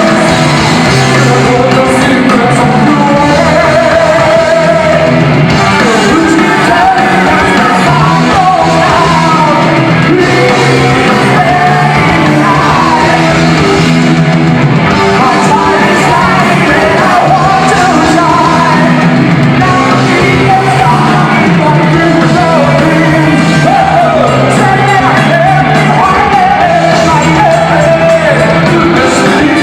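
Heavy metal band playing live at full volume, with a singer's sung and shouted vocals over the band.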